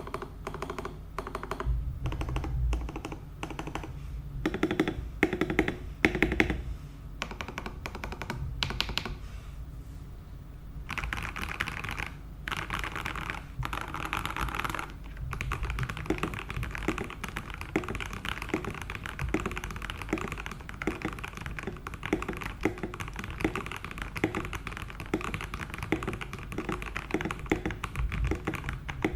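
Keydous NJ81 mechanical keyboard with Kailh Box Red linear switches on a steel plate being typed on. Separate keystrokes come first, then a burst of fast typing, then steady quick typing.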